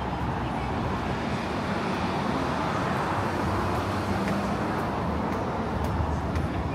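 Steady city road-traffic noise, a little louder through the middle as vehicles pass.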